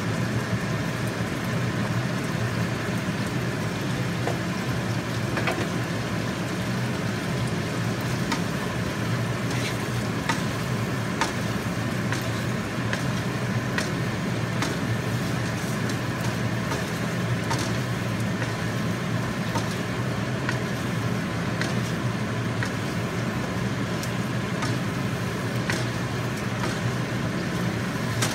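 Chicken and onions frying in a nonstick wok, sizzling steadily, with a wooden spatula scraping and tapping the pan now and then. A steady low hum runs underneath.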